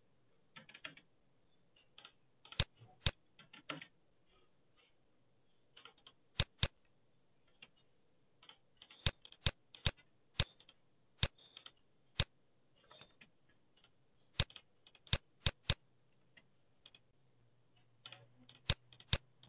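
Computer mouse and keyboard clicks from drafting in AutoCAD. There are sharp single clicks at irregular intervals, now and then in quick pairs or short runs, with softer key taps between them.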